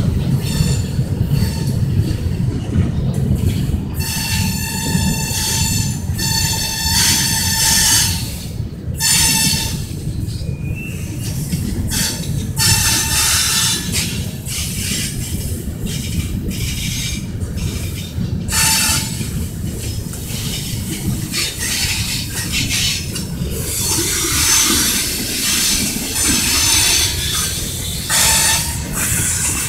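Freight train of gondola cars rolling past: a steady low rumble of wheels on rails, with high-pitched wheel squeal coming and going many times.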